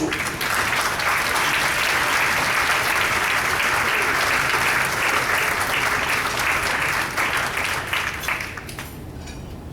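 Audience applauding in a banquet room, a dense steady clapping that begins right away and dies down near the end.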